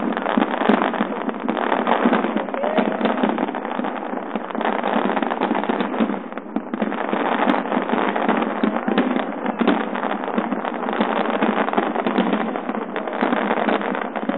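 Large fireworks display: a dense, continuous barrage of shell bursts and crackling with no pause. It is recorded on a phone's microphone, so the bangs sound thin, with little bass.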